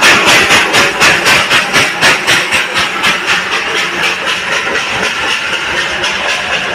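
Darjeeling Himalayan Railway toy train's steam locomotive chuffing as it passes, a rapid rhythmic hiss of about four to five beats a second, the beats growing weaker in the last few seconds.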